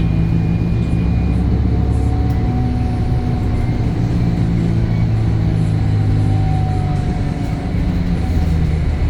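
Temsa Avenue LF 12 city bus running, its DAF diesel engine and ZF transmission giving a steady low drone that shifts slightly in pitch, with a faint high whine gliding gently above it.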